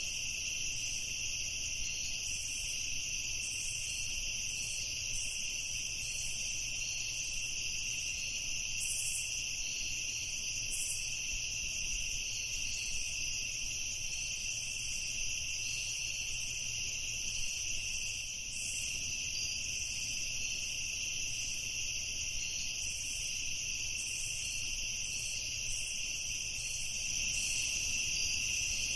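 Night chorus of crickets, a dense, unbroken high-pitched trill.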